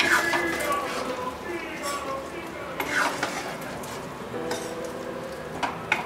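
Steel spoon stirring thick chicken curry in a kadai, scraping and knocking against the pan with a few sharp clinks (near the start, about halfway, and near the end), over the curry sizzling.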